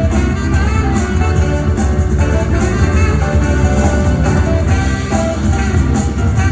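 Live jazz band music from saxophone, piano, bass and drums, playing steadily throughout.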